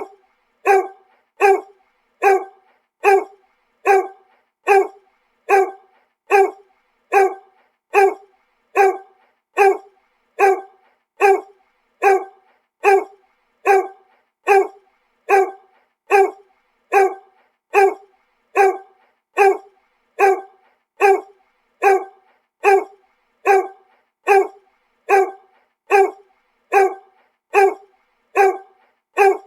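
A dog barking in a steady, even rhythm, a little more than one bark a second, each bark sounding nearly the same.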